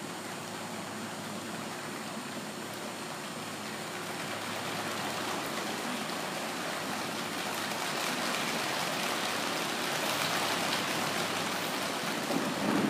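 Audience applauding, an even patter of many hands clapping that slowly grows louder.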